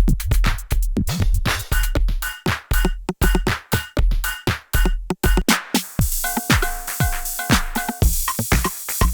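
IK Multimedia UNO Drum drum machine playing a pattern of deep kicks and crisp hi-hats and snares, dry without effects. About six seconds in, the kick drops out for a couple of seconds under a hissing cymbal and short pitched hits, then comes back in.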